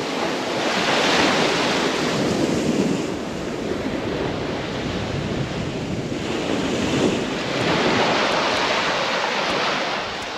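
Black Sea surf breaking and washing onto a sand-and-shell beach, swelling and fading several times, with wind buffeting the microphone.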